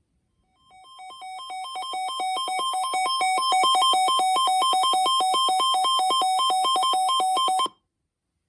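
Electronic emergency alert tone: two pitches alternate several times a second, growing louder over the first few seconds, holding steady, then cutting off abruptly. It is the alarm that introduces a new severe thunderstorm warning.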